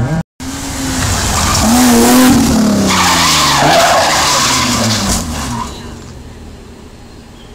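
Rally car engine running hard, its pitch falling as the car lifts and slides through a bend. Loud skidding and scrabbling of tyres from about two to five seconds in as it runs wide and throws up dust from the verge, then the sound fades away.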